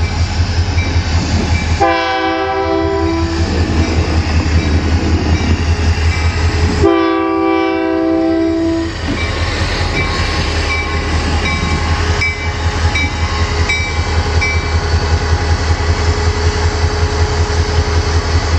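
Union Pacific EMD GP40N diesel-electric locomotive sounding its air horn twice at a grade crossing, two long chord blasts of about two seconds each, a few seconds apart. Between and after the blasts comes the steady pulsing throb of its 16-cylinder two-stroke EMD 645 diesel engine as it rolls slowly past close by.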